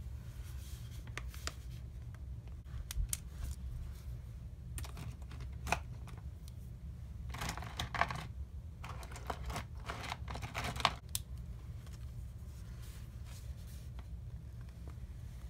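Pens and markers being handled and used on journal paper: scattered small clicks and short scratchy rustles, busiest in the middle, over a steady low hum.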